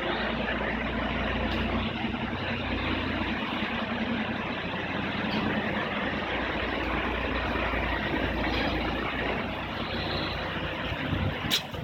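Vehicle engine idling steadily under an even hiss, with a sharp click near the end.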